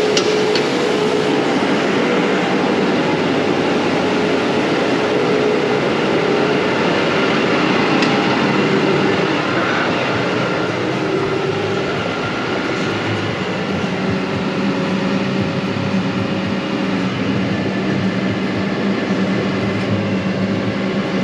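Farm tractor engine running steadily under load, with a constant mechanical noise; the engine note changes and settles lower about twelve seconds in.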